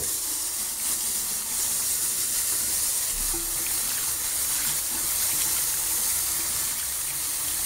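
Water rushing steadily in a restroom, starting abruptly with a strong hiss.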